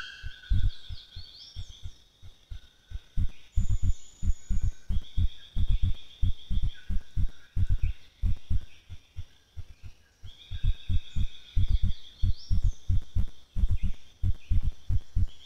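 Quick, muffled low thumps, several a second in irregular runs, are the loudest sound. Over them a high, buzzing trill from forest insects or birds comes back three times, each ending in short rising chirps.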